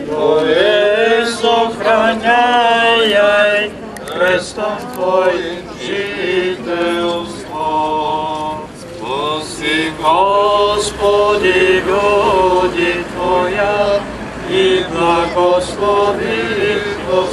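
Orthodox priests chanting the prayers of a blessing-of-the-waters service (vodosvet), in sung phrases with short breaks between them.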